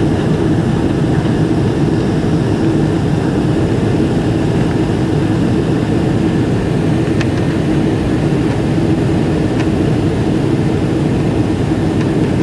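Steady jet engine and airflow noise inside the cabin of a Boeing 777-300ER climbing out after takeoff, from its GE90-115B turbofans, with a steady hum running through it.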